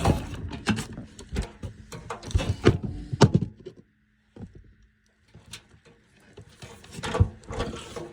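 Irregular metal clunks and knocks of a furnace blower assembly being handled and fitted into the gas furnace cabinet. The knocks pause for a few seconds midway, then more come near the end.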